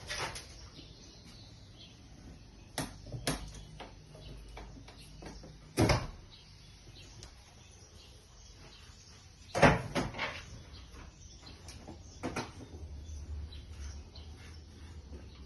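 Irregular knocks and clunks, several seconds apart, the loudest two about six and ten seconds in, against a faint steady background.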